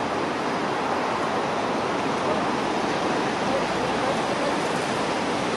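Steady outdoor ambient noise at an even level, with no distinct event standing out.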